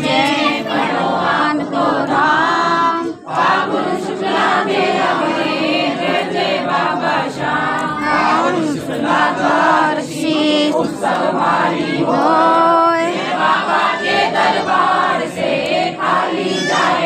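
A crowd of devotees singing a Hindu devotional chant together, many voices at once in chorus, with a brief drop in loudness about three seconds in.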